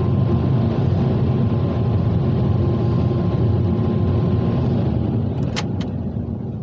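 Ryko Softgloss MAXX rollover car wash running, heard from inside the car: a steady rushing noise over a low rumble that eases off in the last second or so. Two sharp clicks come about five and a half seconds in.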